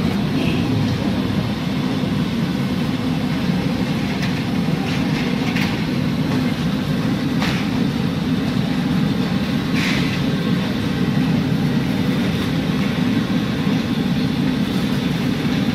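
Steady low rumbling background noise, with a few short clicks about halfway through.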